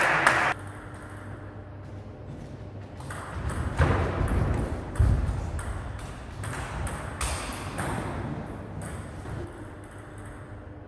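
Table tennis rally: the ball clicking sharply off bats and the table, one hit every half second to second, starting about three seconds in. A brief noise in the first half second.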